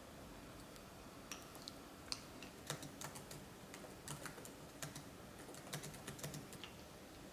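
Typing on a laptop keyboard: quick, irregular key clicks that start about a second in, come thickest through the middle and thin out near the end.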